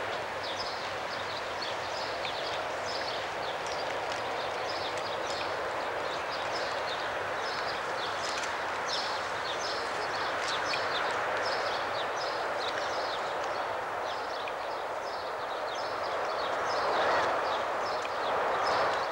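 Outdoor ambience of many short, high animal chirps, a few each second, over a steady rushing noise that swells briefly near the end.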